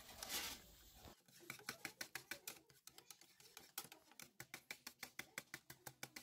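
Wire balloon whisk beating pancake batter in a ceramic bowl, a brief swish near the start, then the wires ticking against the bowl's side in a quick, even rhythm of about four or five faint clicks a second.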